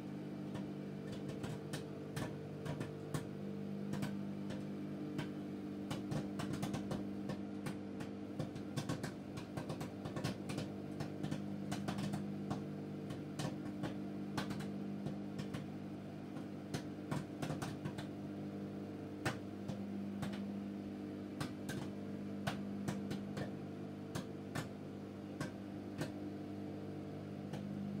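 Sharp microwave oven running with a steady hum while popcorn pops inside it: many sharp, irregular pops, several a second, the batch about halfway done and still popping briskly.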